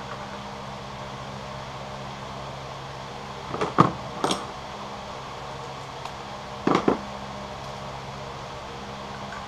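Hand tools clinking against metal in a car's engine bay, in two short bursts of a few sharp clicks each, the first about halfway through and the second about a second before the end. A steady hum runs underneath.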